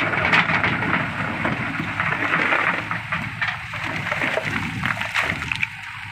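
Loose rock and gravel crunching and clattering under a JCB 3DX backhoe's bucket as it works against the stuck, stone-laden truck, over a steady diesel engine running. The crunching eases off near the end.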